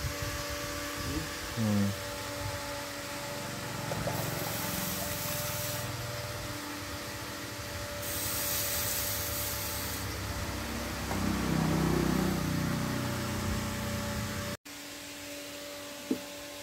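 Water poured from a small mug over a forged steel cutter blade and splashing into a pot below, in two pours of about two seconds each, over a steady hum.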